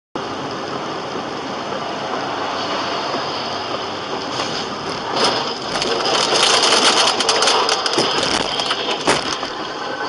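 Steady rush of vehicle road noise that grows louder about five seconds in, with a dense run of sharp clattering knocks until about nine seconds in.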